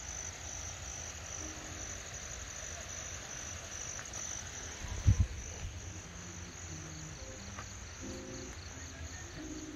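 Crickets chirping in a steady, rapidly pulsing high trill, with faint music in the background that grows stronger toward the end. A single low thump about five seconds in.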